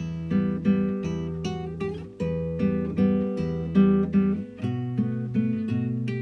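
Background music: a plucked acoustic guitar playing a run of notes over low bass notes.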